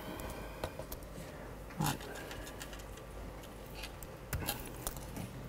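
Scattered clicks and taps of a laptop keyboard being used, with one louder thump a little under two seconds in, over a steady low room hum.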